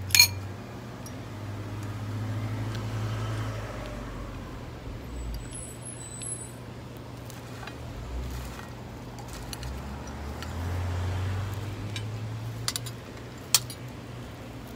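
Cars passing on a street, a low hum that swells twice, with sharp clinks of cutlery on a plate, the loudest just after the start and another near the end.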